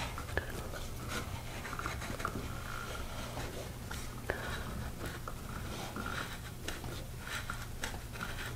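Chisel plane shaving dried glue and a high spot off the wooden edge of a box: a series of short, faint scraping strokes at irregular intervals over a low steady hum.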